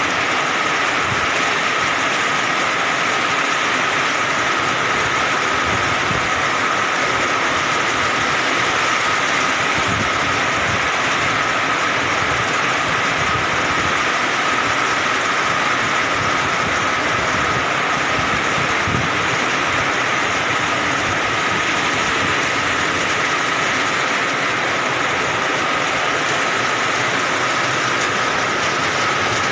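Heavy rain falling steadily, a dense unbroken hiss, with a thin steady high tone running through it.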